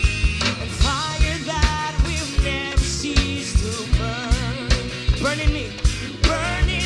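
Live worship band playing an upbeat rock song, with a steady kick-drum beat about two hits a second, bass, and a wavering melody line over them.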